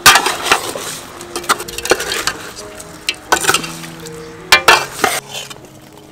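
Metal ladle scraping and clinking against a metal cooking pot as pieces of raw fish in sauce are stirred, in repeated strokes about half a second to a second apart.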